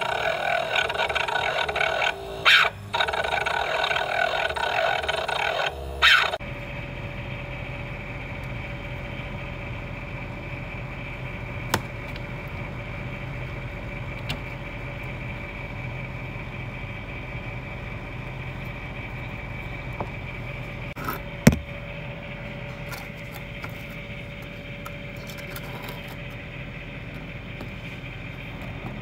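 Daikin air-conditioner outdoor unit running. For the first six seconds it makes a loud, harsh squealing, the sign of a failing fan motor. It then drops abruptly to a quieter steady hum with a held tone, broken by a couple of single clicks.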